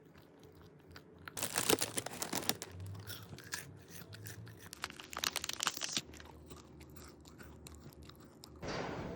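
Close-up crunching as someone bites into and chews crusty bread. The crunches come in dense bursts after about a second and a half and thin out in the second half. Music starts just before the end.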